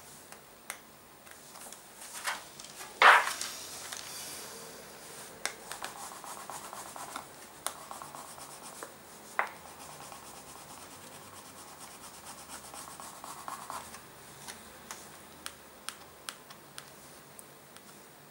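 A pointed embossing tool rubbing and scratching over a thin sheet of gold embossing foil, with small ticks of the tool. There is one loud scrape about three seconds in and a sharp click near the middle.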